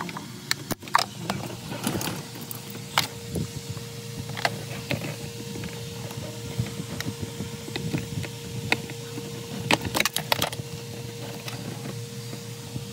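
Irregular clicks, knocks and light rattles of tools and car interior parts being handled, over a faint steady hum that starts about two seconds in.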